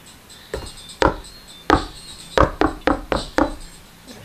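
About eight sharp, irregular knocks and taps, loud and short, several close together near the middle.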